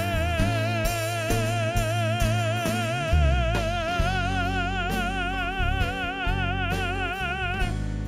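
Male lyric tenor holding a long sung note with wide, even vibrato, then stepping up to a higher held note about halfway through, which he releases near the end. A live band accompanies him with electric bass, acoustic guitar and drum kit.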